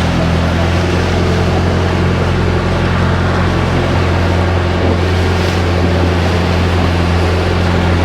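Engine of a motorized bangka (Filipino outrigger canoe) running steadily at cruising speed, a constant low hum over the rush of water and wind.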